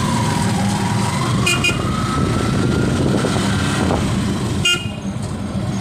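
Motor tricycle's motorcycle engine running while under way, with a faint whine slowly rising in pitch over the first few seconds. Two short horn beeps sound, about a second and a half in and just under five seconds in.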